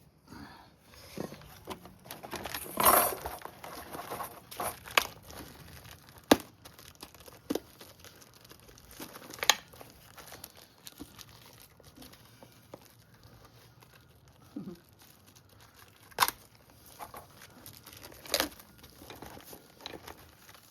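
Brake parts being handled and fitted by hand: scattered sharp clicks and taps, with rustling and a burst of crinkling about three seconds in.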